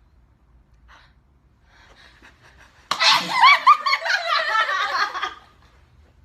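A sudden sneeze about three seconds in, at once followed by a burst of high-pitched laughter from several young women, with quick repeated rising and falling 'ha' sounds that last about two and a half seconds.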